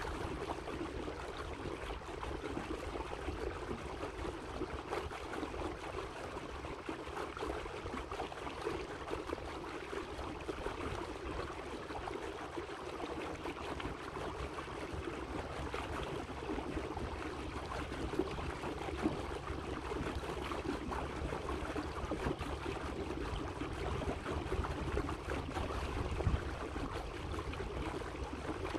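Water lapping and splashing against the hull of a slowly moving electric boat on choppy water. It makes a steady wash with a low rumble underneath.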